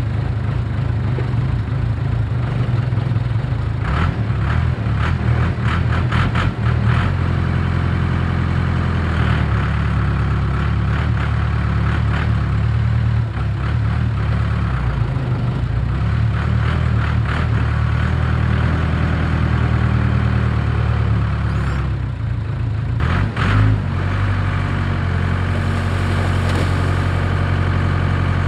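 Diesel engine of heavy construction equipment running steadily, with several metallic clanks over it.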